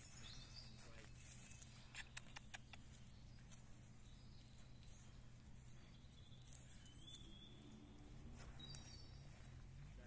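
Near-silent pasture ambience with a low steady hum. A grazing horse tears and chews grass, giving a quick run of four crisp crunches about two seconds in and one more later, and faint bird chirps come in near the end.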